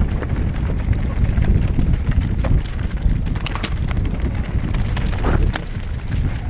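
Mountain bike riding fast over loose stones: a steady low rumble from the tyres and wind on the helmet camera's microphone, with scattered sharp clicks and rattles from stones and the bike.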